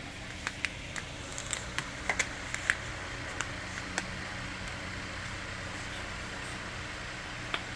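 A cat clawing and biting at a plastic slipper on a hard floor: a scatter of sharp light clicks and taps over the first three seconds and one more near the end, over a steady low hum.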